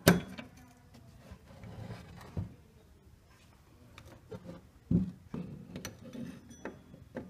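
Metal engine parts (a belt tensioner, an aluminium bracket and idler pulleys) being handled and set down on a wooden workbench, giving scattered knocks and clicks. The loudest knock comes right at the start and another strong one about five seconds in.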